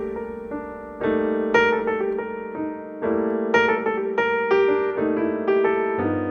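Background piano music: calm chords and a melody, with new notes struck every half second to a second and left to ring.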